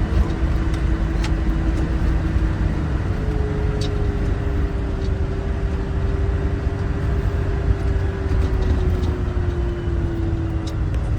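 Land Rover driving off-road: a steady engine and drivetrain rumble with a held whine that steps up a little about three seconds in and fades out near the end, and a few light knocks.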